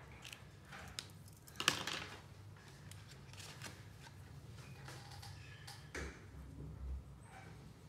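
Colouring supplies being handled: a sharp click about two seconds in, light scratchy rustles as a wax crayon is picked out of its plastic tray, and the crayon scribbling on paper near the end.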